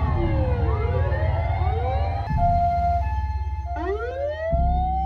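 Emergency-vehicle sirens wailing, their pitches gliding down and up over a low rumble. About three and a half seconds in, a siren winds up and settles on a steady pitch.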